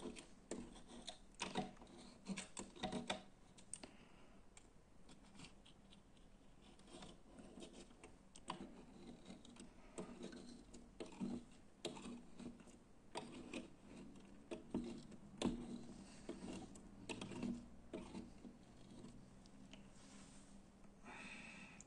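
Disposable razor blade scraping softened tape adhesive off window glass: an irregular string of short scratches and clicks. The glue, softened with dimethyl sulfoxide (Dimexide), is coming away.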